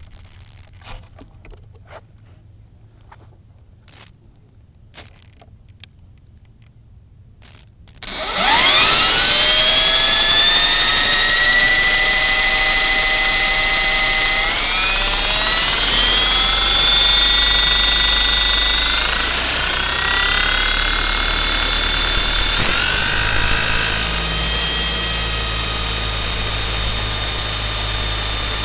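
Align T-Rex 450 SE V2 electric RC helicopter spooling up about eight seconds in: the brushless motor and gear whine rises quickly in pitch, then holds steady and loud, stepping up in pitch three more times. Before that, only a few faint clicks.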